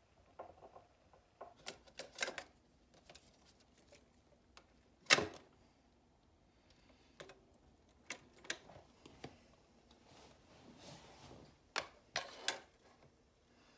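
Scattered sharp plastic clicks and clacks of a Realistic dual cassette deck being worked by hand, its cassette door and push-buttons operated and a cassette handled. The clicks come in small clusters, with one louder clunk about five seconds in.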